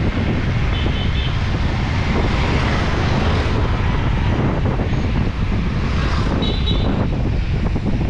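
Mountain bike riding along a dirt single-track trail: steady rumble of wind on the microphone mixed with tyre and trail noise, with two short high squeals.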